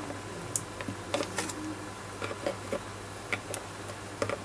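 Diagonal side cutters snipping off resistor leads on a circuit board: a scattering of small, sharp clicks at irregular intervals, over a steady low hum.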